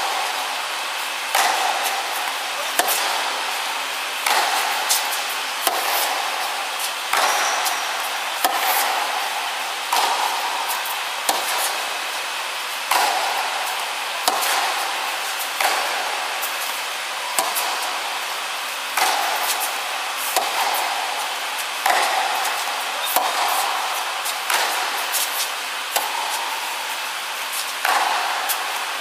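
Tennis rally on an indoor hard court: rackets striking the ball and the ball bouncing, a sharp pop about every second and a half, each ringing briefly in the hall, over a steady background hiss.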